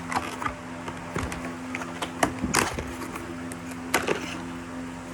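Scattered clicks and short rattles of a plastic DeWalt screwdriver bit case being handled and opened, with one longer rustle about halfway through. A steady low hum runs underneath.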